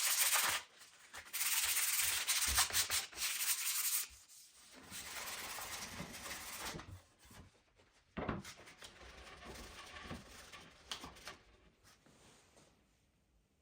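Wood being sanded in several spells of rasping strokes, each a few seconds long with short pauses between. The later spells are softer, and the last has a few light knocks mixed in before it dies away near the end.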